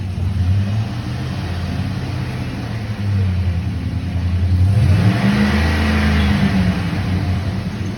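Chevrolet Silverado pickup engine idling, then revved once about halfway through, its pitch rising and falling back over about two seconds. The engine is run up to try to get the freshly rebuilt 4L60E transmission's pump going, with the transmission giving no drive in forward or reverse.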